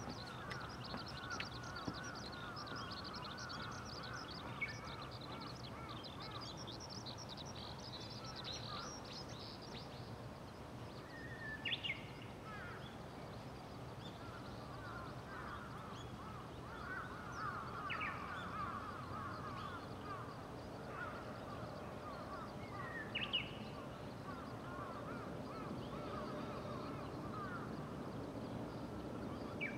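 Birds calling at dawn: many small high chirps and a lower repeated trilling throughout over a steady outdoor hush. Three louder, harsh calls stand out, spaced several seconds apart.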